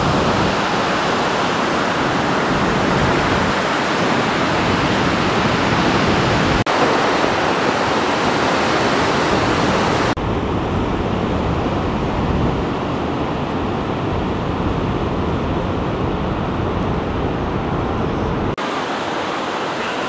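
Ocean surf breaking, a steady rushing wash of water noise. The sound changes abruptly three times, about a third of the way in, halfway, and near the end.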